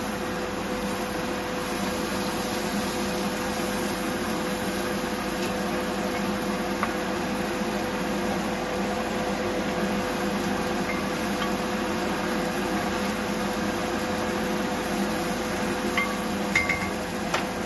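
Steady hum of a kitchen fan running, with one constant tone. Near the end come a few light taps of a wooden spoon against the stainless-steel pan.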